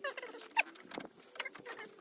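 Fast-forwarded time-lapse audio of work on a car engine bay: a rapid jumble of clicks and tool clatter with short squeaky chirps.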